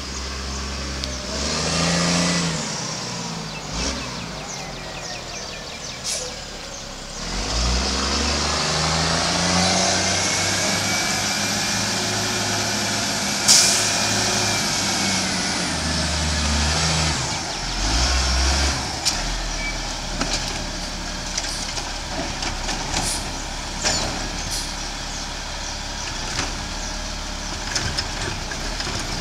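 GMC Heil Rapid Rail side-loading garbage truck driving uphill, its engine pulling in a long rise and fall of pitch, with one sharp hiss-like crack about halfway through. It then settles to a steady idle with small clicks as it pulls up beside a trash cart and its arm reaches for the cart.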